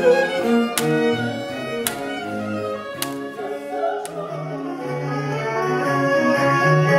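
Small baroque ensemble playing an instrumental passage: bowed strings (cellos and violins) over harpsichord. Four sharp ticks come a little over a second apart in the first half, and the music swells louder in the second half.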